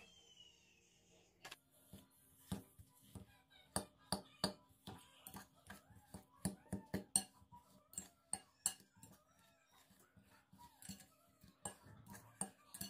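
A metal spoon mashing and stirring cottage cheese, sugar and butter in a glass bowl, clinking against the glass in irregular taps, two or three a second, starting after a second or so.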